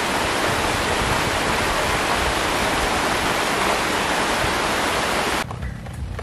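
Heavy rain falling steadily on foliage, a dense even hiss that cuts off abruptly about five seconds in.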